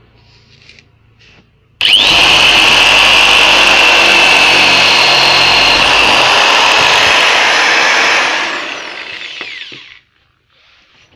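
Electric drill with a small hole-saw bit, starting suddenly about two seconds in and running loud and steady at full speed as it cuts a hole through the plastic trim above the number plate. The trigger is then released and the drill whines down to a stop.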